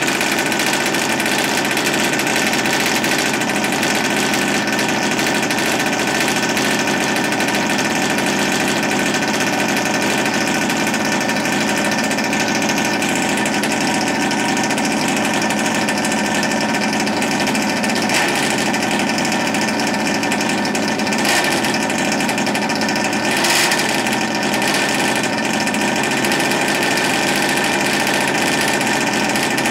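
OBR 57cc twin-cylinder two-stroke engine of a large-scale RC buggy, running steadily at idle and really loud. The engine is freshly converted and not yet run in; it is running rich, its carburettors not yet fine-tuned.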